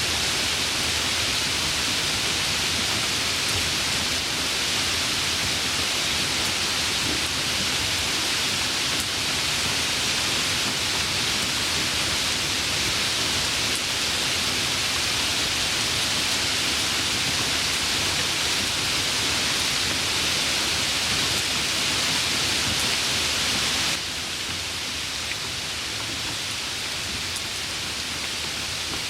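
Heavy rain falling in a steady, even hiss. About 24 s in it drops abruptly to a somewhat quieter, thinner rain.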